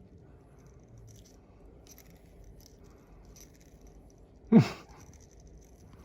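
Maltese puppy playing on the floor: faint light tapping and rattling, with one short, loud sound about four and a half seconds in whose pitch drops quickly.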